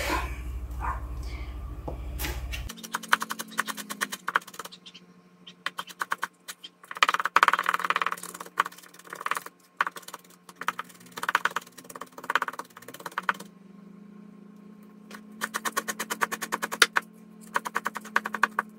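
Kitchen knife chopping fresh dill on a cutting board: several runs of rapid taps with short pauses between them.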